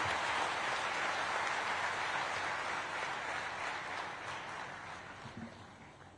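Audience applauding, the clapping fading away over the last few seconds.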